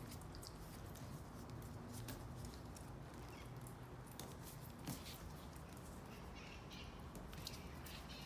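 A Parson Russell Terrier puppy's claws clicking and skittering irregularly on a hardwood floor as it scampers and pounces, with one slightly louder knock about five seconds in.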